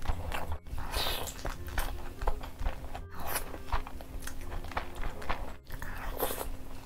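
Close-miked mukbang eating sounds: irregular wet chewing, biting and mouth smacks as chicken curry and rice are eaten by hand.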